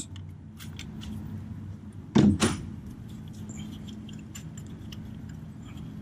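Ratchet wrench clicking irregularly as a starter mounting bolt is unscrewed, with a louder metallic knock about two seconds in, over a low steady hum.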